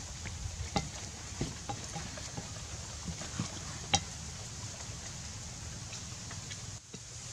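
Light clicks and taps from a split bamboo skewer and raw meat being handled, scattered over a steady outdoor hiss; the sharpest click comes about four seconds in.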